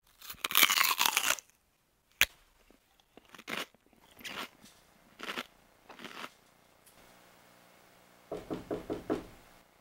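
Popcorn being eaten from a bowl: a loud crunching rustle in the first second and a half, then a sharp click and several separate crunches of chewing. Near the end comes a quick run of about six thumps.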